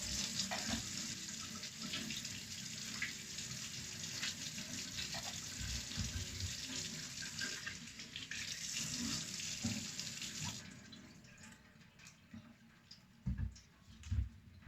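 Tap water running into a sink as vegetables are rinsed under it, shut off abruptly about ten seconds in. Then two short knocks near the end.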